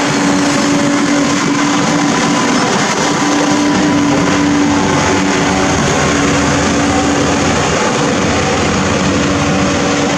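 Amphibious backhoe's diesel engine and hydraulics running steadily under load while it digs, with a steady drone.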